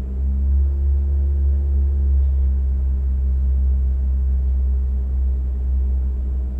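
Opel Tigra's engine idling steadily while the car stands still, heard from inside the cabin as a deep, even hum.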